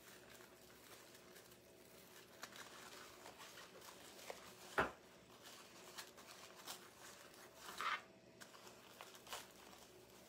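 Faint rustling and crinkling of glitter ribbon being handled and worked into a wreath frame, with a few small clicks and one sharp tap about halfway through.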